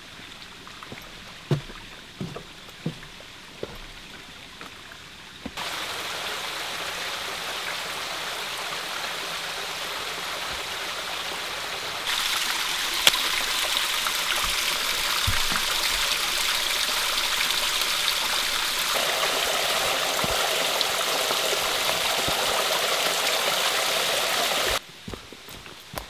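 A small forest stream, its water running well with a steady rush. It comes in suddenly after a few seconds of quiet with a few soft knocks, steps louder about halfway, and cuts off shortly before the end.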